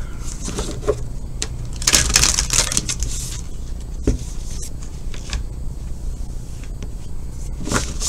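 Tarot cards being shuffled by hand, with a burst of rapid card flicking about two seconds in and scattered taps and clicks of cards.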